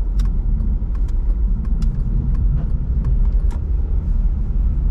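Car driving on a snowy road: steady low road and engine rumble, with irregular sharp clicks and rattles over it.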